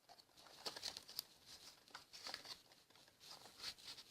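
Faint, irregular rustling and crinkling of paper and plastic packaging being handled.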